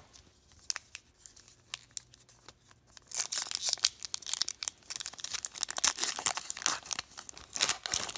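A foil trading-card pack (2016-17 Fleer Showcase hockey) crinkling in the hands and being torn open, a dense crackle of foil from about three seconds in. Before that there are only a few faint taps.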